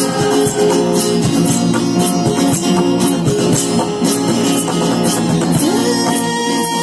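Live acoustic band music: an acoustic guitar strumming over a steady box-drum (cajon) beat, with regular percussive hits.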